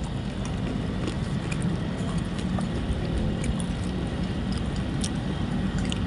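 A steady low rumble throughout, with a few faint ticks and splashes as a hooked red devil cichlid thrashes at the water surface.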